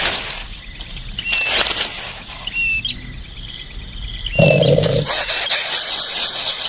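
Short high bird chirps repeating about once a second over a steady, fast-pulsing cricket-like trill, with some rustling. About four and a half seconds in there is a brief lower-pitched sound.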